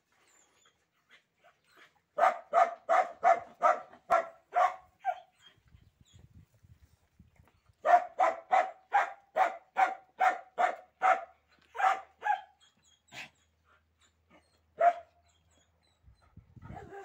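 A dog barking in two quick runs of short, evenly spaced barks, about three a second, then a few single barks near the end.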